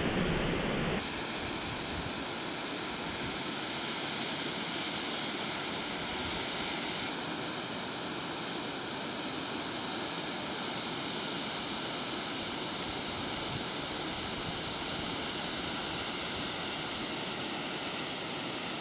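Waterfall's falling water rushing in a steady, even wash of noise. A louder low rumble cuts off about a second in.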